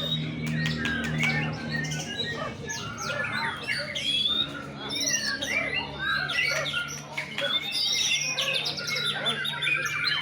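Male white-rumped shama (murai batu) singing a rapid, varied song of quick rising and falling whistles with no breaks, over a steady low hum.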